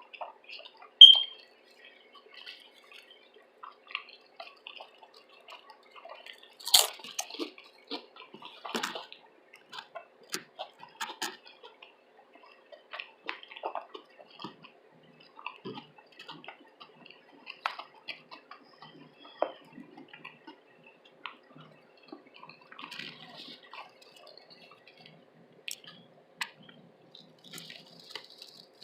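Close-miked chewing of a veggie tuna sub sandwich: irregular wet smacks, clicks and squishes. A brief high squeak comes about a second in, and a louder sharp crackle about seven seconds in.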